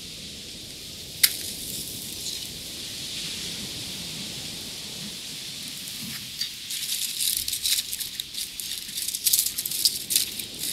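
Hands mixing raw chicken pieces with spice powders in a clay pot: a run of quick, crackly sounds in the second half, after a single sharp click about a second in.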